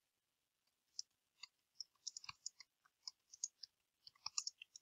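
Faint, irregular clicking of a computer keyboard being typed on, starting about a second in.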